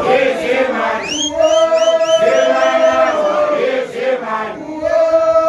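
Group of male voices chanting a song together in long held notes. About a second in, a high call rises over the group and wavers for a couple of seconds.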